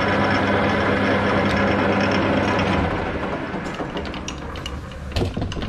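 Hafco AL-320G geared-head metal lathe running with a steady gear-train hum, then switched off about three seconds in and spinning down to a stop. A couple of sharp metallic clicks follow near the end.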